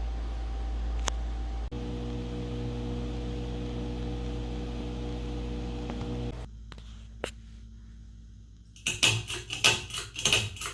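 Ceiling fan motor humming steadily. The hum changes abruptly about two seconds in and turns quieter after about six seconds. Near the end comes a short cluster of loud, irregular noises.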